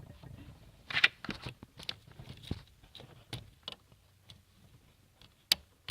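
Small clicks and knocks of a vehicle's headlight dimmer (bright-light) switch being handled and pushed with a finger. There is one sharp click about five and a half seconds in as the switch is pushed and clicks over.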